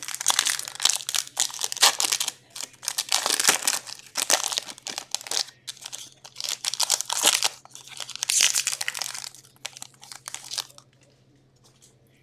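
Hockey card pack wrappers being torn open and crinkled, in repeated crackling bursts that stop near the end.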